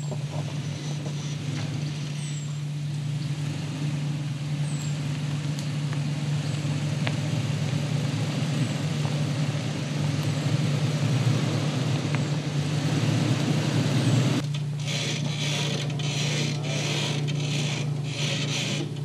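Toyota Tacoma pickup's V6 engine running at low speed as the truck crawls over a dirt trail, a steady low drone. A few high chirps, like a bird, come in the first half. About fourteen seconds in, crackling and scraping of dirt and debris under the tyres joins the engine.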